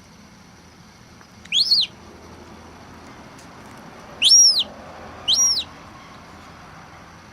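Young gull chick peeping: three high calls, each rising then falling in pitch, one about a second and a half in and two close together around the middle.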